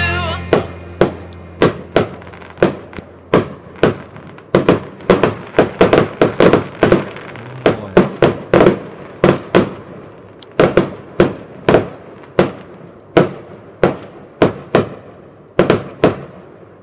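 Fireworks going off: a long, irregular string of sharp bangs, about two a second and bunched closer in the middle, each trailing off in an echo.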